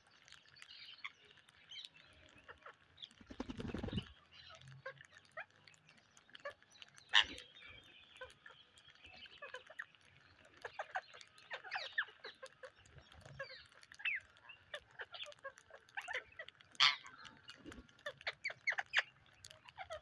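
A flock of rose-ringed parakeets feeding on rice grains spread on concrete: many sharp clicks of beaks pecking at the grains, mixed with short chirps and squawks. There is a brief low rumble about three seconds in.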